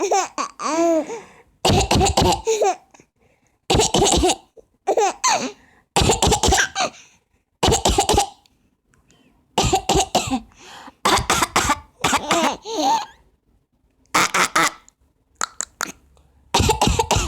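A woman coughing in short bursts, each followed by a baby's high, giggling laugh, back and forth many times.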